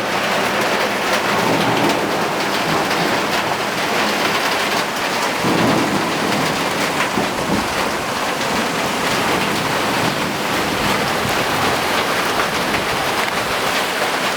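Heavy rain pouring down steadily in a downpour, with a low rumble swelling briefly about halfway through.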